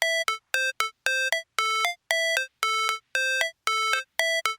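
Background music: a synthesizer plays a short repeating melody of clipped, beep-like notes, two or three a second, stepping between a few pitches with brief gaps between them.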